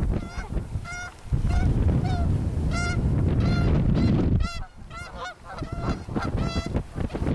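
Canada geese honking, a dozen or more short calls throughout, several in quick succession, over a low rumble for a few seconds in the middle.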